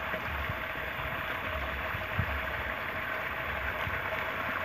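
Water pouring over a small concrete weir and splashing into a shallow stream pool, a steady rush, with low rumbles coming and going underneath and a soft knock about two seconds in.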